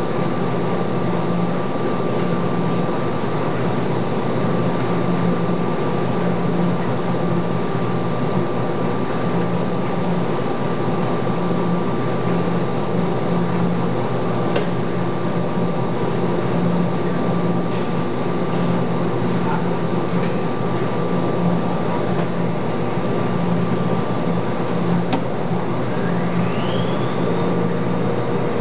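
Stainless-steel front-loading washing machine running its wash cycle: a steady machine hum with a low drone that pulses on and off about once a second, and a brief rising whine near the end after which a new steady tone holds.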